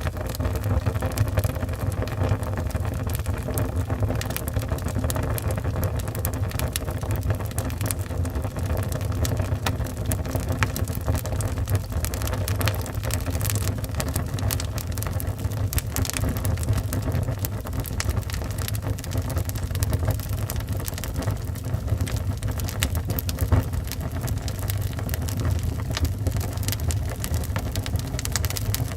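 Wood fire burning in a fireplace: a steady low roar of flames with frequent irregular crackles and pops of burning wood.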